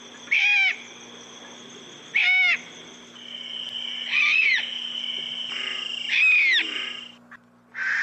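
An owl giving four short, arched, fairly high-pitched calls, about one every two seconds, over a steady background hum.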